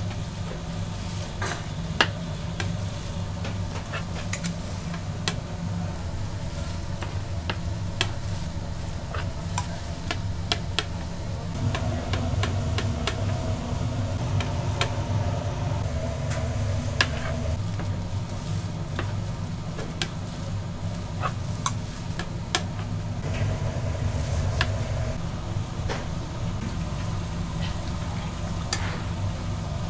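Kitchen machinery running with a steady low hum, with many scattered sharp clicks and knocks of utensils as fish cakes are being made.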